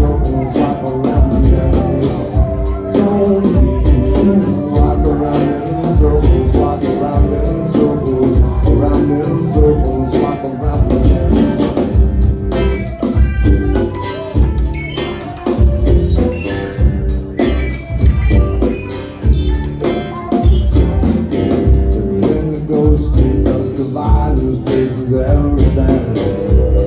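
Live rock band playing, with drums and bass keeping a steady beat.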